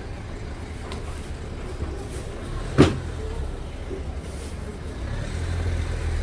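Low rumble of road traffic along a street, growing louder near the end as a vehicle passes, with one sharp knock a little under three seconds in.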